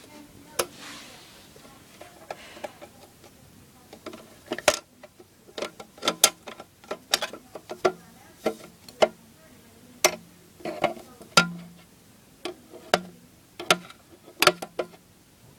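Leopard gecko chewing crickets: irregular sharp crunching clicks, sometimes several in quick succession, a few to a second.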